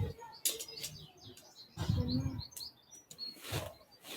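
Small birds chirping and tweeting in the background, with rustles and light knocks from tent fabric and poles being handled during tent pitching.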